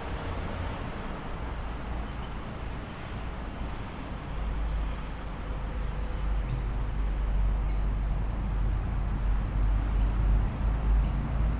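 City street traffic noise, with a vehicle's low rumble growing louder from about four seconds in.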